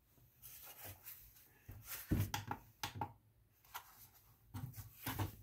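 Handling noises: a nylon pouch being lifted and rustling, and a plastic kitchen scale being picked up and moved on a tabletop, with several short knocks and scrapes.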